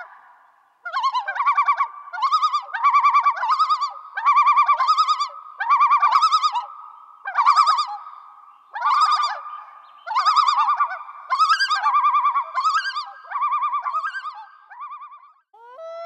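An animal's warbling call repeated in short bursts, about a dozen in all, each under a second long and about a second apart.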